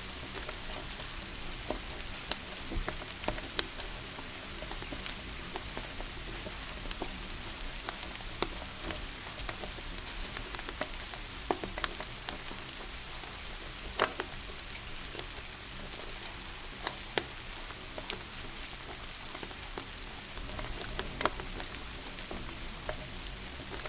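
Steady rain hiss with the irregular sharp pops and crackles of a wood fire in a fireplace scattered over it.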